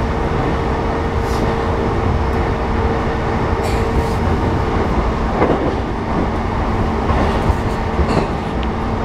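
Interior running noise of a JR East E233 series 6000-subseries electric commuter train at steady speed: wheels rumbling on the rails with a steady hum and a few faint clicks.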